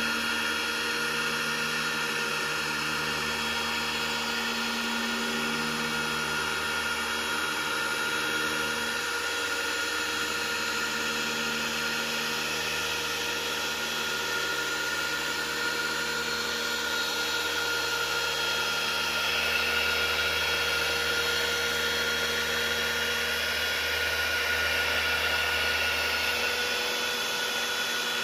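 Electric car polisher with a foam pad running steadily as it buffs polish into car paint, a constant motor whine that swells slightly now and then as the pad is worked over the panel.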